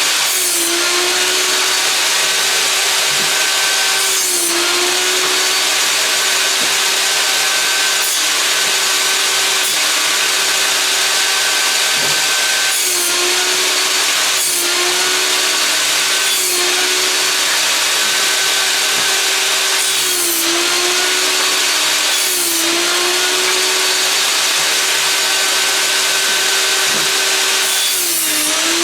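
Einhell electric table saw running steadily, crosscutting old wooden boards into firewood pieces. Every few seconds the blade bites into a board, and the motor's pitch sags briefly under the load and then recovers, about eight cuts in all.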